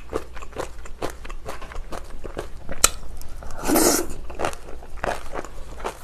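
Close-up chewing and crunching of spicy napa cabbage kimchi with rice: a steady run of crisp crunches several times a second. A sharp click comes about three seconds in, followed by a short, louder noisy rush as the next mouthful goes in.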